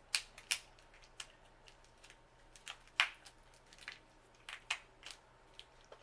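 Lobster tail shell being cracked and broken open by hand: a series of sharp, irregular cracks and snaps, the loudest about three seconds in.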